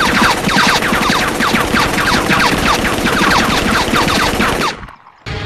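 Rapid automatic gunfire from an action-film soundtrack: a dense, unbroken run of shots mixed with falling whines. It cuts off abruptly shortly before the end.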